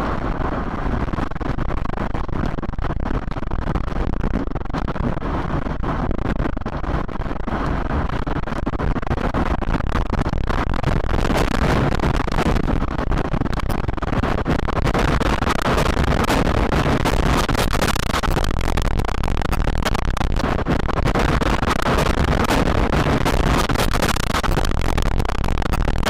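Wind of an EF3 tornado blowing hard in a continuous rushing noise, with flying debris clattering and striking throughout. The noise grows louder and busier about ten seconds in.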